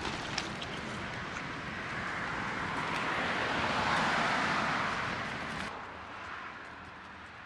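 A car driving past on the street: tyre and road noise swells to a peak about four seconds in, then drops off abruptly, leaving quieter outdoor background noise.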